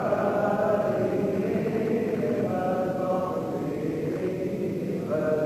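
Men's voices chanting religious recitation in slow, long-held melodic lines that rise and fall.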